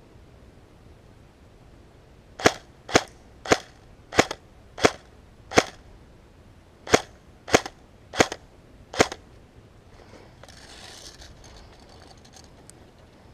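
Airsoft gun fired semi-automatically: ten sharp single shots, one roughly every half second. There are six, a short pause, then four more.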